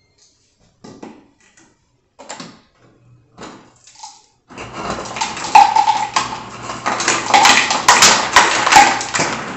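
Refrigerator door dispenser running into a plastic water bottle. A few scattered clinks come first, then from about four and a half seconds a loud continuous rushing clatter with a low hum under it.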